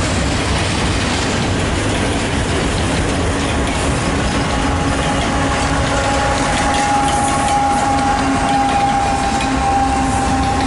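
Freight train cars rolling steadily past at close range. About four seconds in, a steady high-pitched squeal from the train joins the rolling noise.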